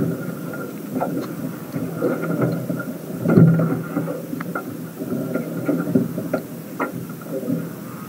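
Wind rumbling on an action camera's microphone, with scattered knocks and splashes from a hooked bass being reeled in and lifted out of the water, and a low hum that comes and goes.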